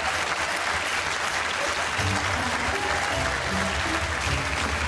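Studio audience applauding steadily, with entrance music coming in about two seconds in.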